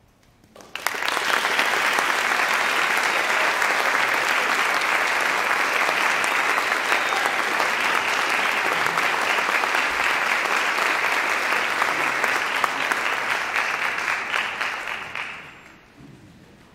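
Audience applauding: it breaks out suddenly about a second in, holds steady, then dies away near the end.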